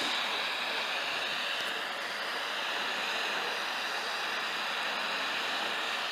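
Hot air rework station blowing a steady hiss of hot air from its nozzle while desoldering a chip from a circuit board.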